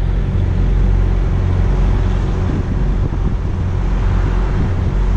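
Wind buffeting the microphone: a loud, uneven rumble with a steady low hum beneath it.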